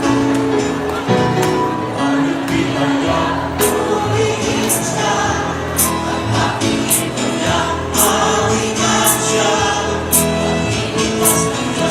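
Music with a choir singing held notes over a beat that strikes about once a second.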